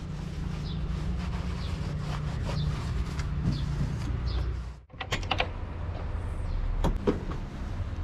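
Heavy diesel engine idling with a steady low rumble. A few sharp clicks and knocks come about five seconds in and again near seven seconds, as hands work on the machine's metal panels and fittings.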